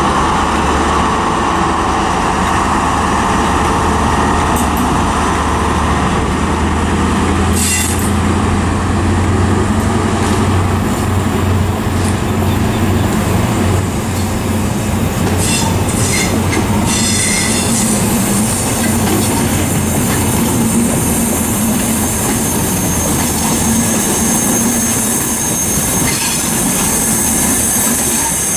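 CrossCountry HST pulling out: the Class 43 power car's MTU diesel engine runs under power with a low drone that fades after about fourteen seconds. The wheels click over rail joints, and a high steady squeal sets in during the second half as the coaches roll past.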